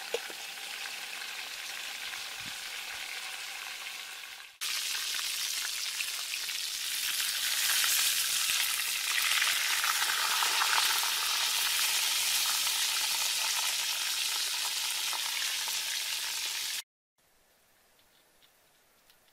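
Whole chicken frying in hot oil in a wok, a steady sizzle; quieter under a metal lid at first, with a light clink as the lid is set on, then much louder and brighter from about five seconds in as the uncovered chicken is turned with a wooden spatula. The sizzle cuts off suddenly near the end, leaving only faint sound.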